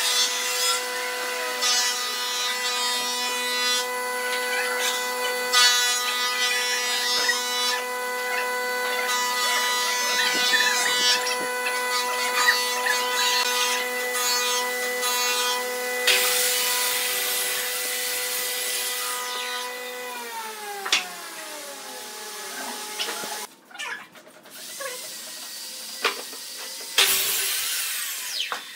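An electric power-tool motor runs with a steady whine, then winds down and stops about two-thirds of the way through. Rubbing and handling noises of wood pieces run along with it, and a few sharp knocks of wood being set down come near the end.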